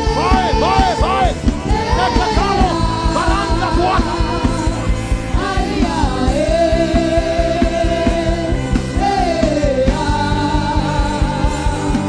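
Music with singing: a voice holds long, wavering notes over a steady beat.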